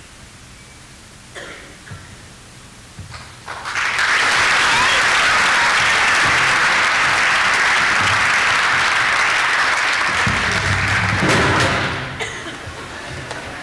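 Audience applauding, breaking out loudly about three and a half seconds in and dying away near the end.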